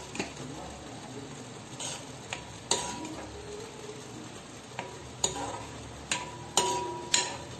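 Steel ladle stirring thick, simmering tomato chutney in a pan, with about eight sharp clinks of the ladle against the pan, several ringing briefly, over a low steady sizzle.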